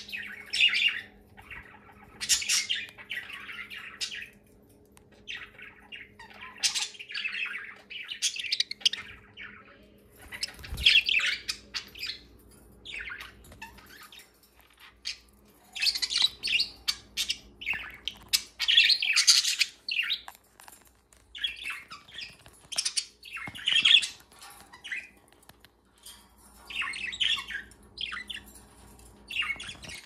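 Several pet budgerigars chirping and chattering in short bursts with brief pauses between.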